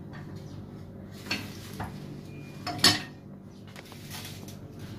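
Cookware and utensils being handled: a few light clinks and knocks, the sharpest and loudest about three seconds in, over a low steady hum.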